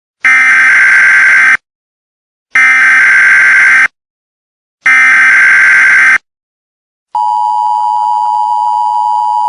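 Emergency Alert System alert opening: three identical bursts of the SAME header's shrill digital data screech, each about a second and a quarter long with a second's pause between. About seven seconds in, the steady two-tone EAS attention signal starts and is still sounding at the end.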